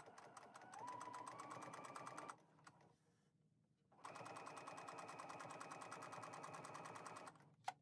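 Computerized sewing machine stitching slowly in two short runs, each an even stitch-by-stitch patter, its motor rising in pitch as the first run gets going. It is topstitching close to the edge of a folded fabric strap with a lengthened stitch. A small click follows near the end.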